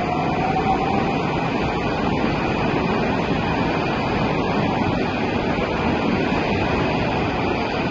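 Metro train pulling out of the station past the platform, with a steady loud rumble and rush of the cars going by. A motor whine rising slowly in pitch fades out about a second in as the train gathers speed.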